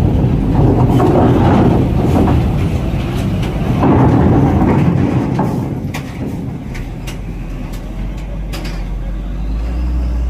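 A heavy truck driving aboard a ferry, its engine running and tyres rumbling over the steel grated loading ramp, loudest in the first four seconds and then dying down. Several sharp metallic clanks follow in the second half.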